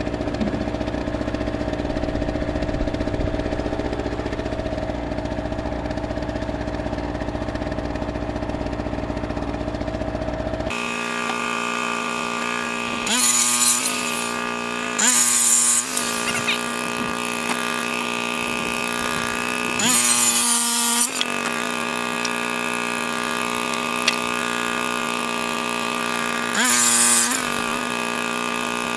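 Corded circular saw cutting boards in four short bursts, about a second each, spread over the second half; these are the loudest sounds. Under them an engine hums steadily, and its sound changes abruptly about ten seconds in.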